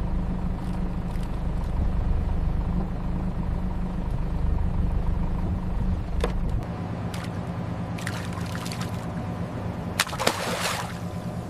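Underwater-style water ambience: a steady low rumble that drops away about two-thirds through, then short bursts of bubbling, rushing water near the end.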